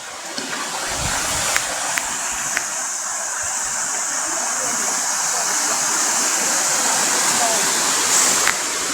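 Waterfall rushing steadily, an unbroken wash of falling water that grows a little louder over the stretch, with a few faint clicks on top.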